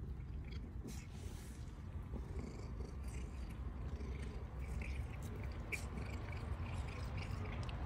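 Domestic cat purring, a low steady rumble, with small scattered clicks as it chews grass.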